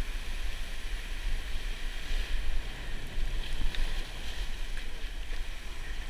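Wind buffeting the microphone, with a steady low rumble, over ocean surf washing against the rocks.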